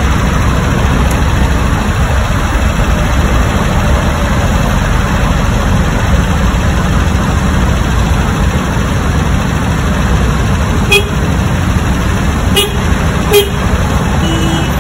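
Steady rumble of heavy city traffic on a busy avenue. In the last few seconds come a few short, sharp sounds and brief car horn toots.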